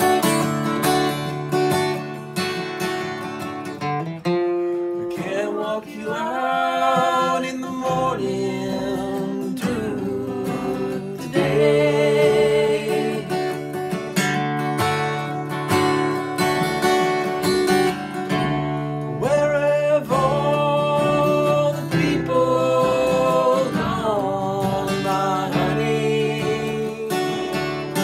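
Acoustic guitar playing, with chords and melodic lines that bend in pitch at several points.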